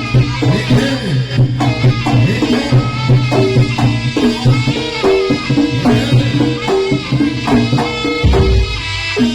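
Live Javanese jaranan (kuda kepang) gamelan accompaniment: a melody over a steady low drone with drums and hand percussion striking throughout, and a deep low stroke about eight seconds in.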